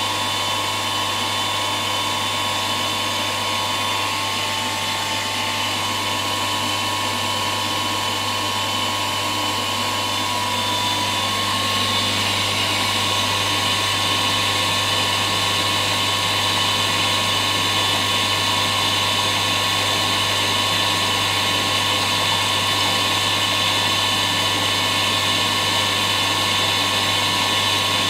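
A small electric motor running steadily with a whine and a low hum. It gets slightly louder and higher about a dozen seconds in.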